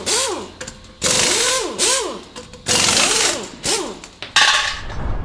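Mechanical sound effect of short power-tool bursts, about one a second, each with a hiss and a whine that rises and falls as the tool spins up and down.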